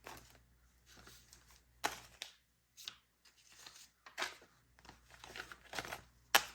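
Paper banknotes being handled and counted: a series of short rustles and crinkles, with one sharp snap near the end.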